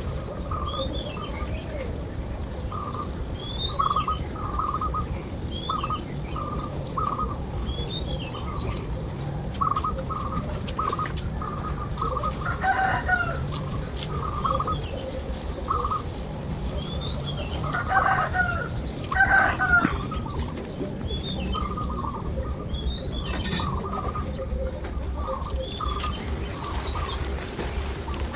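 Backyard chickens clucking in short repeated notes, with a few louder calls scattered through. Small birds chirp over them every second or two.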